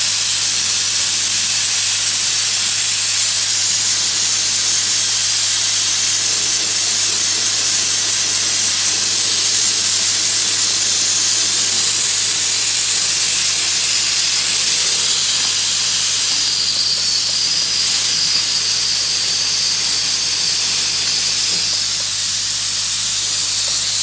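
Bead-blasting nozzle firing blast media on compressed air against pool waterline tile: a steady hiss that does not let up, stripping calcium and dirt buildup from the tile.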